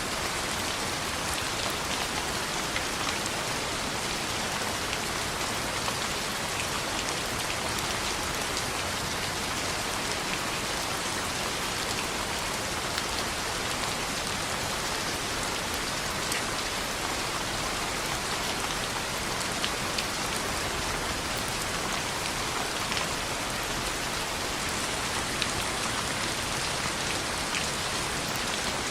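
Steady rain pattering on a window glass, an even hiss with scattered sharp ticks.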